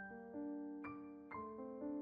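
Slow, soft background piano music, single notes struck about every half second and left to ring.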